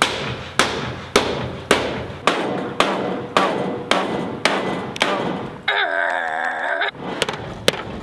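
Hammer blows on the sheet-metal roof of a Mercedes Sprinter van, steady at about two a second, each ringing briefly. The roof is being beaten flat to give the skylight a level seat. About six seconds in, a brief wavering pitched sound interrupts the blows for about a second.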